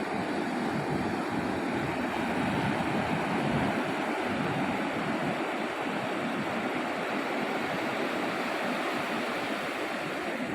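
Sea surf breaking and washing on a sandy beach, a steady rushing wash that swells a little a few seconds in.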